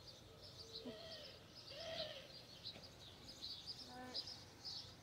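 Small birds chirping repeatedly and high-pitched, with a couple of low hooting or cooing calls about one and two seconds in.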